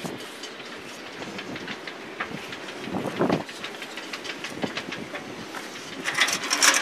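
Close rustling and clicking from a handheld camera being handled and moved, with clothing brushing against it. A louder crackling rustle starts near the end.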